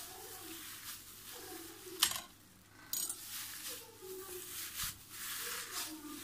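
Gloved hands kneading raw minced meat with chopped onion and spices in a bowl: wet squishing and the crinkle of thin plastic gloves, in uneven rustling strokes. A sharp click about two seconds in, and a smaller one about a second later.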